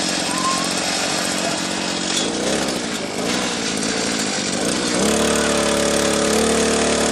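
Small petrol engine of a mini rotary tiller running under throttle, working the soil; about five seconds in its sound settles into a steady, even note.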